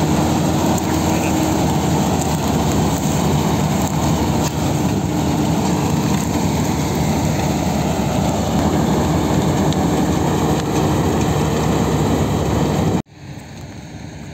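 Hind Agri Power CropMaster combine harvester running while cutting standing wheat: a loud, steady engine and machinery noise. About thirteen seconds in the sound cuts off suddenly to a much quieter background.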